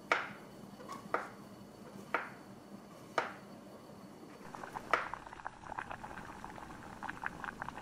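A chef's knife slicing through a king oyster mushroom and knocking on a wooden cutting board, five cuts about a second apart. Over the second half, liquid boiling in a glass saucepan gives a rapid run of small bubbling ticks and pops.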